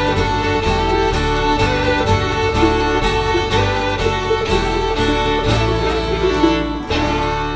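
Instrumental folk/bluegrass music: fiddles bowing sustained lines over picked acoustic guitar, resonator guitar and banjo. The tune comes to a final chord near the end, which is left ringing.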